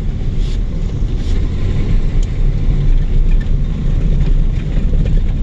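Chevrolet S-10 pickup driving, heard inside the cab: a steady engine and road drone with a low hum from the front end, which the driver thinks might be a bad front wheel bearing.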